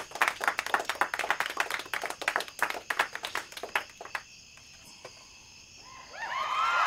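Rapid, irregular clapping for about four seconds, a short lull, then applause swelling up near the end.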